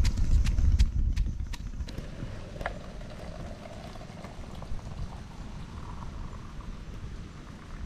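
Wooden pestle pounding chillies and spices for a spice paste in a mortar: rhythmic knocks about three a second with dull thuds, stopping about two seconds in.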